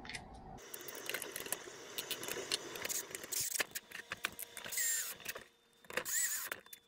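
Plastic clatter and knocks as a chainsaw's recoil starter cover is handled and fitted onto the saw, then a Milwaukee cordless drill-driver whines in two short runs near the end as it drives the cover screws in.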